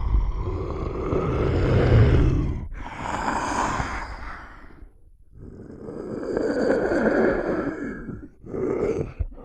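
Film monster sound effects voiced by a human performer: a long low growl, then a breathy wheezing exhale, then after a brief pause another long growl and a short one near the end.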